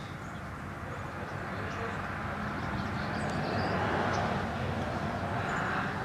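A passing road vehicle: tyre and road noise that swells to a peak about four seconds in and then begins to fade. A few faint, short, high chirps of small birds sound over it.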